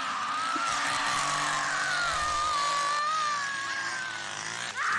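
Film soundtrack: a chainsaw engine running steadily while a woman screams in one long, wavering scream.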